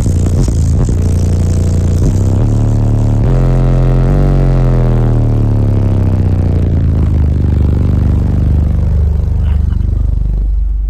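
Car audio subwoofers playing very loud bass: a few stepped low notes, then one long tone that glides steadily down in pitch over several seconds.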